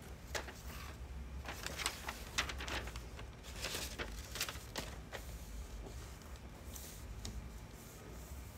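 Rustling and crackling of a thin white sheet being handled, a dense run of short crackles over the first five seconds, then a few scattered ones. A steady low hum runs underneath.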